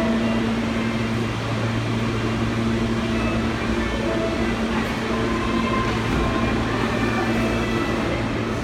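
New York City R160 subway train standing at a station platform with its doors open, a steady hum from its running equipment over the general rumble of the station.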